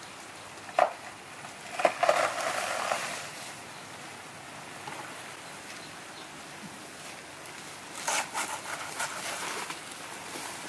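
Intermittent rustling and crackling of banana plants and leaves being handled and pushed through, with a sharp snap about a second in and a burst of crackly rustling near the end, over a quiet outdoor background.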